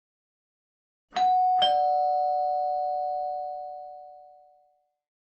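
Two-tone ding-dong doorbell chime: a higher note, then a lower one half a second later, both ringing on and fading out over about three seconds.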